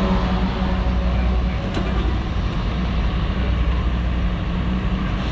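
Steady low drone of a running engine, unchanging throughout.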